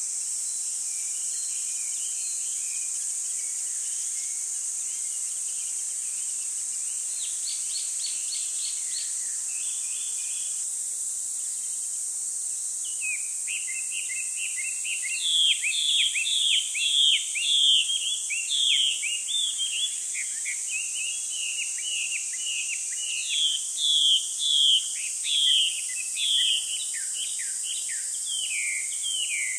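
Songbirds chirping over a steady high hiss. The chirps are faint at first, with a quick trill, then from about halfway become a long run of loud, rapid chirping notes.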